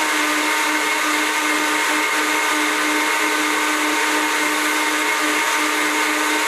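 Blendtec blender running on its cold juice cycle, a steady, even whine as it blends shredded coconut and water into coconut milk.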